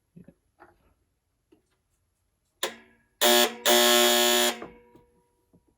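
Presto HeatDish Plus space heater's tip-over alarm buzzer, set off by lifting the heater. A click, then two loud buzzes a little over three seconds in: a short one, then one of about a second.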